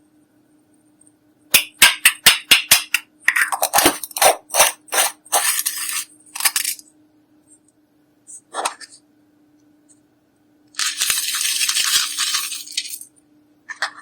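A hard tool tapping and scraping on a makeup palette: a quick run of sharp clicks, then rasping scrapes. The longest is a steady two-second scrape near the end.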